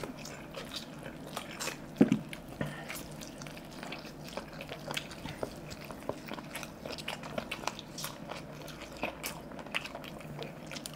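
Two people biting and chewing saucy chicken curry leg pieces off the bone by hand: wet mouth smacks and many small scattered clicks, with one louder click about two seconds in.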